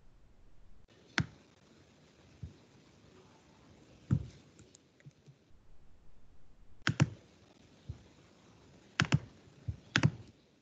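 Scattered computer mouse and keyboard clicks, about seven in all, some in quick pairs, as code is selected, copied and pasted into a text editor.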